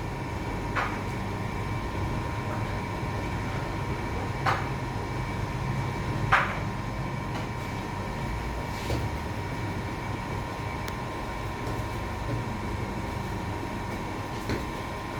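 Steady machine hum and rumble with a couple of constant tones, broken by a few short, sharp knocks, the loudest about six seconds in.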